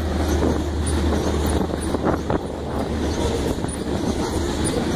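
A fast freight train of covered grain hopper cars passing close by: a steady rumble of steel wheels on the rails, with a couple of sharper knocks about two seconds in.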